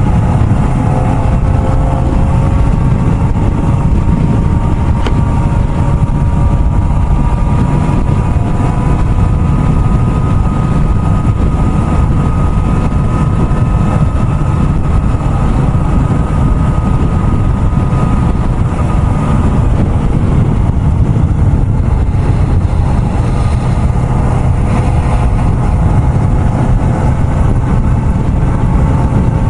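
Kawasaki ZX-4RR's 399 cc inline-four running at steady highway cruising speed over a heavy low rumble, its engine note creeping slowly upward. The engine tone fades about two-thirds of the way through and comes back near the end.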